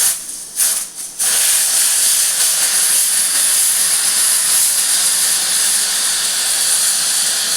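Pressure cooker whistle venting steam: two short spurts, then from about a second in a continuous loud, high hiss of escaping steam.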